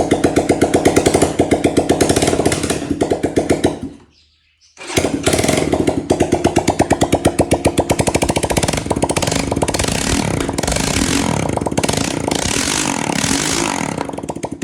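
Single-cylinder 250 cc engine of a Vento Nitrox 250 motorcycle running with no exhaust fitted: a loud, harsh train of firing pulses. The sound cuts out for about a second around four seconds in, then comes back with faster, shifting pulses before easing off near the end.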